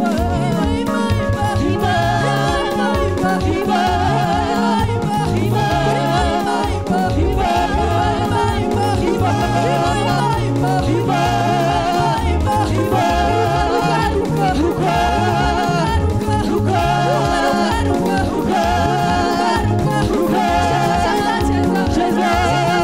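Live gospel praise music: a praise team singing into microphones over an amplified band with a steady drum beat.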